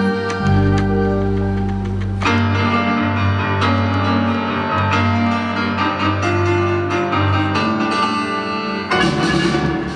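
Live instrumental ensemble playing: piano and keyboard with violins over a drum kit, in sustained chords with a bass line. The harmony changes about two seconds in, and a cymbal-like crash comes near the end.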